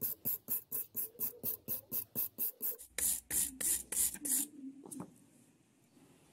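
Handheld wire brush scrubbed back and forth over a steel file's teeth: quick scratchy strokes at about five a second, then a few louder, slower strokes at about three a second, ending with a single click.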